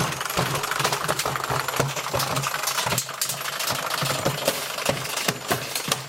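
A running machine with a steady low hum and rapid, irregular metallic rattling and knocking throughout.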